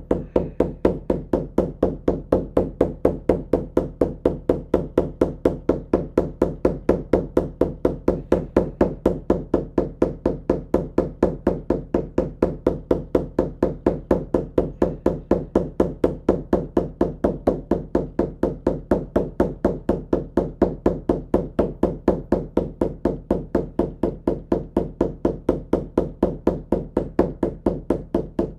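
Shamanic journey drum beaten at a steady, even pace of about four beats a second, a deep, dull hand-drum beat that holds the same tempo throughout.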